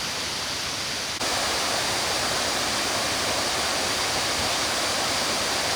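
Steady rush of water tumbling over step falls and cascades, a little louder from about a second in.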